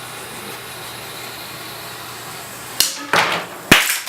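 Bangers (small firecrackers) exploding in a glass of paint: a steady low hum, then near the end a sharp bang, a second one just after, and a third, louder bang.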